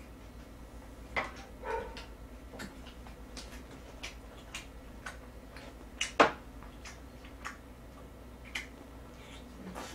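Scattered short clicks and taps of chopsticks against small dishes, with mouth sounds of chewing, while eating grilled pork belly; the sharpest click comes about six seconds in.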